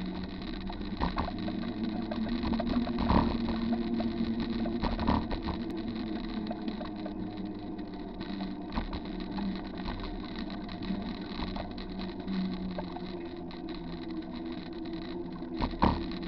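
Bicycle rolling along a wet concrete trail, heard through a bike-mounted camera: a steady rumble and hiss of tyres and riding noise, with a few knocks and rattles, the sharpest about three seconds in and another near the end.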